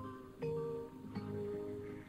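Background film music: a slow line of held notes, a new one about every half second.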